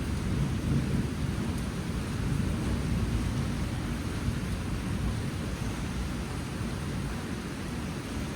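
Monsoon rain falling steadily, with a deep low rumble under it.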